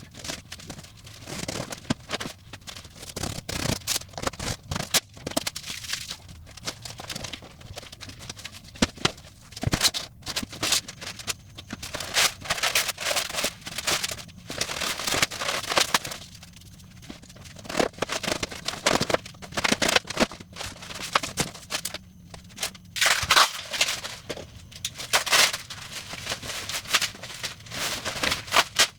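Cardboard shipping box and packing material being opened and pulled off a wooden cigar humidor: irregular rustling and scraping with many sharp clicks and knocks, in bursts separated by short pauses.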